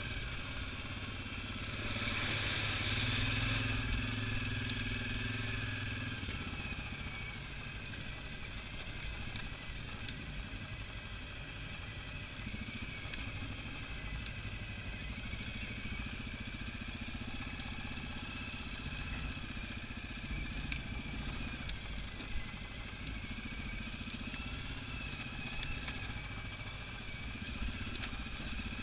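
Single-cylinder ATV engine running steadily as the quad climbs a rough, rocky trail. The engine pulls harder for a couple of seconds near the start.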